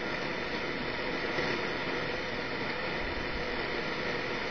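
Grundig Satellit 750 shortwave receiver tuned to 3.330 MHz, the Canadian time-station frequency, giving a steady hiss of static with no station coming through: the Canadian time signal is not being received.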